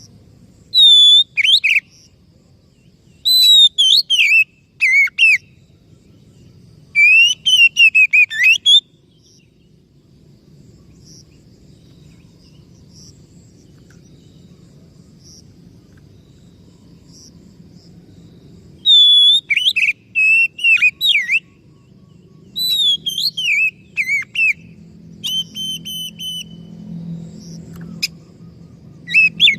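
Oriental magpie-robin singing loud, varied whistled phrases of sweeping up-and-down notes, in bouts with a quiet gap of about ten seconds in the middle; late on it repeats a few short, even notes.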